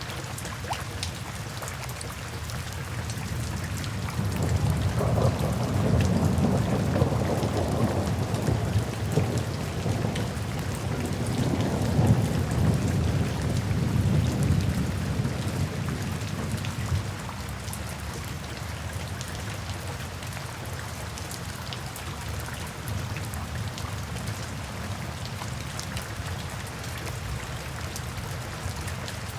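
Steady rain hissing, with a long, deep roll of thunder that builds about four seconds in, swells twice, and dies away after about seventeen seconds.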